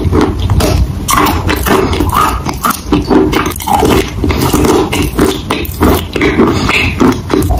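Close-miked chewing of a mouthful of wet grey chalk paste: thick, sticky squelches and many sharp, irregular mouth clicks as the paste is worked between the teeth and lips.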